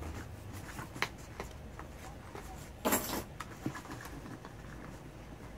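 Cardboard and paperboard packaging being handled: a prerelease kit box slid out of a shipping carton, with a few light taps and one louder, brief rustle about three seconds in.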